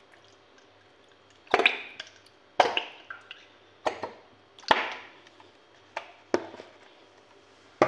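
Plastic squeeze bottle of tamarind paste being squeezed over a pan: three sudden squirts, each with a short noisy tail, a second or two apart, followed by a few light knocks near the end.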